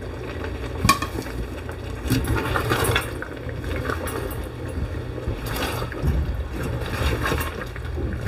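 A silicone spatula stirring chunks of turnip and meat in an aluminium pressure cooker pot, with irregular scrapes and light knocks against the pot, over a steady low hum.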